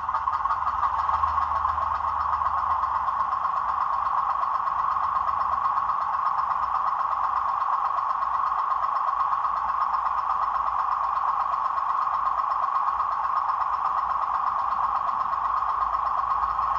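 Digital sound decoder in an OO gauge model Class 07 diesel shunter playing its diesel engine sound through the model's small speaker, running steadily as the locomotive moves slowly.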